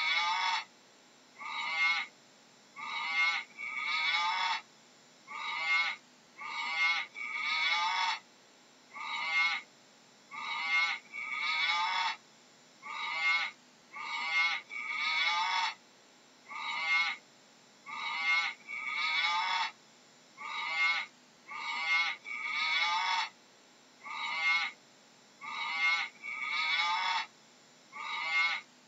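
Animal calls in pairs, a short note followed by a longer one, repeating evenly about every two seconds.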